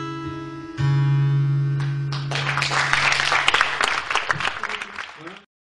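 A guitar's closing chord ringing out, strummed again about a second in, then an audience applauding from about two seconds in. The sound cuts off suddenly near the end.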